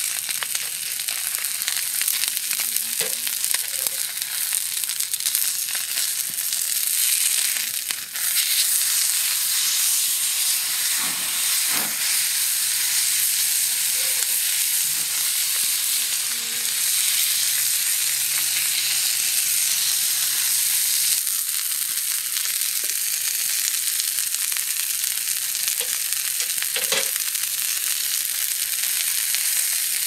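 Beef steak sizzling on a hot iron griddle plate over a campfire: a steady high hiss of fat and juices frying, with a few sharp pops.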